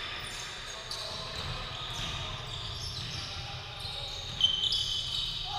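Basketball game on a hardwood court: the ball bouncing and sneakers squeaking on the floor, echoing in a large hall. A sharp, high squeak comes about three-quarters of the way in.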